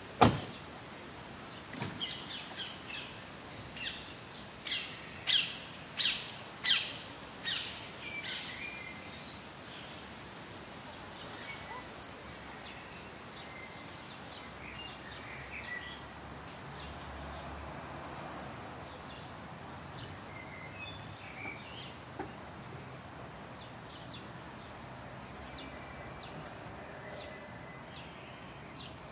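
Outdoor ambience with a steady low background hiss and birds calling. About two seconds in, a run of about ten short, sharp high chirps begins, spaced under a second apart, followed by scattered fainter chirps. A single sharp click comes right at the start.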